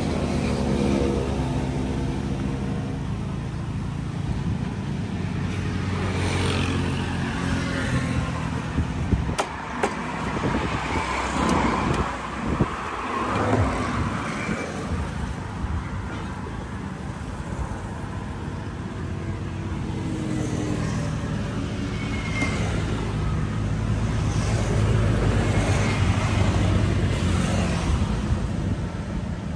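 A vehicle engine running with a steady low hum. It fades a few seconds in and comes back up near the end. In the middle there are a handful of knocks from a blade chopping fish on a wooden block.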